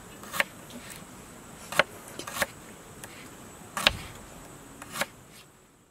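Knife slicing a garlic clove on a wooden cutting board: about half a dozen sharp, separate taps of the blade through the clove onto the board, at an irregular pace, fading out at the end.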